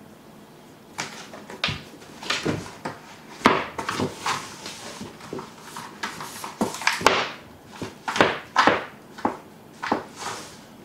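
Cat clawing and rubbing on a corrugated cardboard scratcher on a wooden floor, making irregular short scratchy scrapes and knocks that start about a second in and stop near the end.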